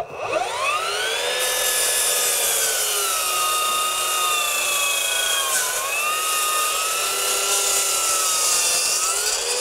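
Bosch PROFACTOR 18V Surgeon 12-inch glide miter saw's BITURBO brushless motor, set to eco mode, spinning up with a rising whine and then crosscutting a single 2x12. The blade's pitch sags under load about five and a half seconds in and climbs again near the end as the cut finishes.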